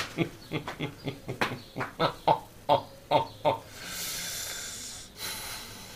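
A man's voice in a quick run of short bursts, then a steady hiss lasting about a second.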